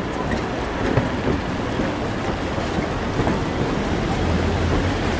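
Steady rain falling on a city street, an even hiss with scattered drop ticks, under a low traffic rumble that swells about four seconds in.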